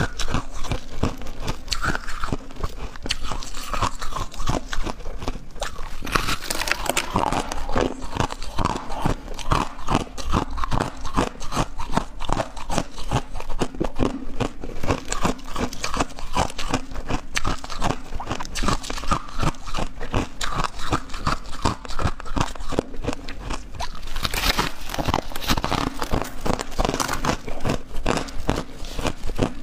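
Crushed ice being bitten and chewed close to the microphone: a continuous run of rapid, crisp crunches.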